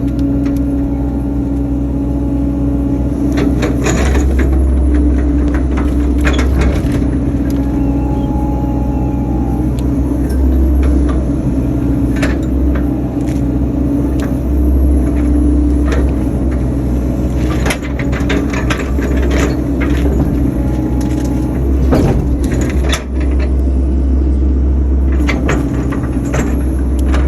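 Excavator's diesel engine running steadily under load, heard from inside the cab, with scattered sharp cracks and knocks as the bucket works big tree stumps and roots.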